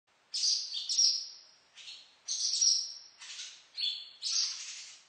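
Barn swallows twittering: a run of about six short calls in five seconds, the loudest near the start and in the middle.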